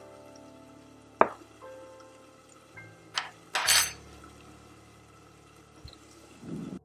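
Soft background music with held notes, broken by a sharp clink about a second in and a couple of shorter clinks and a brief clatter around three to four seconds in.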